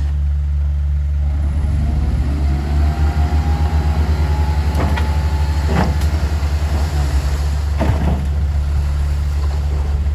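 Heavy earthmoving machine's diesel engine running with a deep, steady rumble that pulses rhythmically for a few seconds in the middle. A faint whine rises and levels off, and a few short sharp knocks come about five to eight seconds in.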